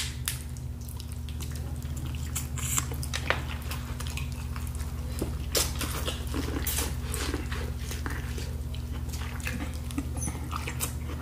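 Close-up mouth sounds of biting and chewing boiled corn on the cob: irregular wet clicks and smacks, over a steady low hum.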